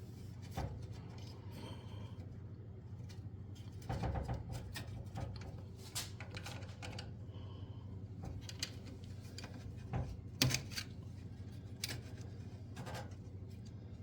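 Small clicks and scrapes of a flathead screwdriver being worked in and twisted to pry wire connectors off the terminals of a stove's burner control switch. The sharpest click comes about three-quarters of the way through, over a steady low hum.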